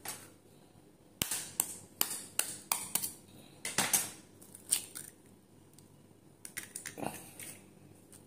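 A hen's egg tapped several times against the rim of a ceramic bowl and cracked open: sharp taps about two a second, a louder crack about four seconds in, and a few more clicks near the end as the shell is pulled apart.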